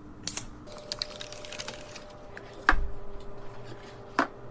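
A few sharp plastic-and-metal clicks and taps of PC parts being handled during a build. Louder click with a soft thump about two and a half seconds in.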